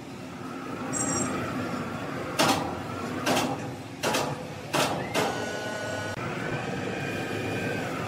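Sawmill machinery running steadily, with about five sharp knocks or clanks roughly a second apart starting a couple of seconds in.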